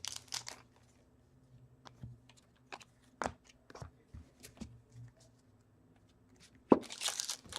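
Trading cards being handled and flipped through: scattered light clicks and slides of card stock, with a sharper knock near the end followed by crinkling of a foil pack wrapper.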